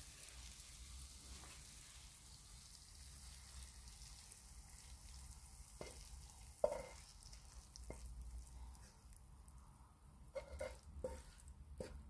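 Mushroom pepper fry sizzling faintly in the pan, the sizzle thinning out after a few seconds. Then a metal spoon knocks and scrapes against the pan several times as the fry is spooned out, with the sharpest knock about six and a half seconds in and a quick run of knocks near the end.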